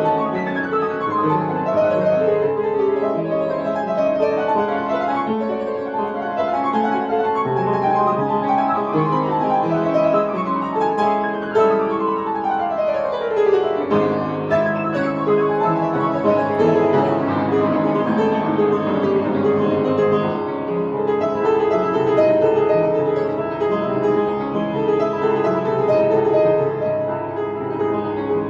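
Piano music with fast runs sweeping downward in pitch, one plainly heard about halfway through.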